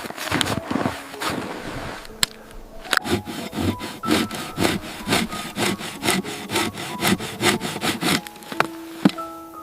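A saw cutting through wood with rhythmic back-and-forth strokes, slower at first, then settling into about three strokes a second before stopping near the end.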